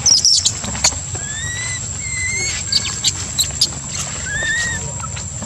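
Newborn baby macaque crying: a few shrill, wavering squeals at the start, then three thin, drawn-out whimpering calls, each gently rising and falling, with scattered short rustles and clicks.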